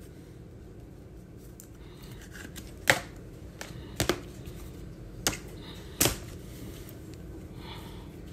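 Baseball cards and a clear plastic card sleeve being handled: a handful of short, sharp clicks and snaps between about three and six seconds in, over a low steady hum.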